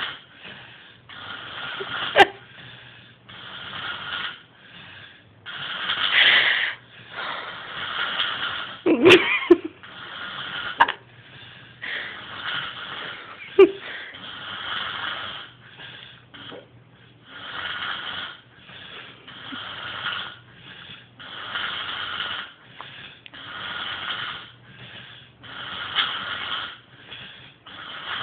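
A sleeping woman snoring: rasping, wheezy breaths, about one every second or so. A few sharp clicks fall among them, with a heavier snort about nine seconds in.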